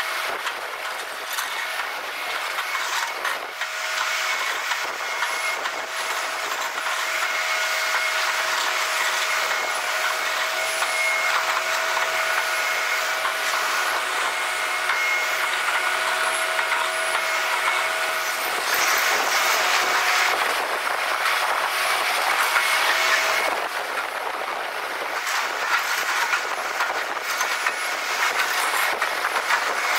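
Heavy construction machinery running: a steady whine of several high tones over a hiss. The hiss swells for a few seconds about two-thirds of the way in.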